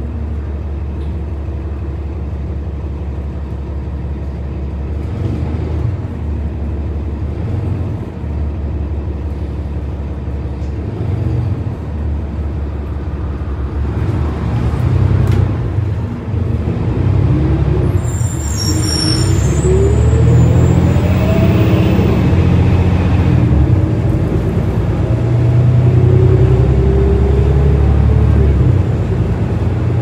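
Interior of a New Flyer Xcelsior XD40 diesel bus under way: the Cummins L9 engine and Allison B400R transmission make a steady low rumble, and in the second half a whine rises in pitch twice and the sound grows louder as the bus picks up speed.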